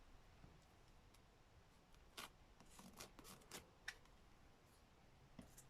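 Faint handling of paper cut-outs at a craft table: a few soft clicks and rustles about two to four seconds in, otherwise near silence.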